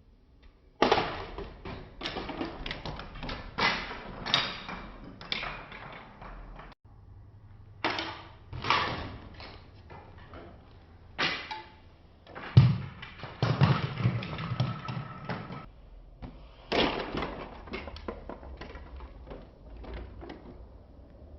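Thuds and rattling clatter from a Lego plane crashing and its plastic bricks scattering, in several separate bursts.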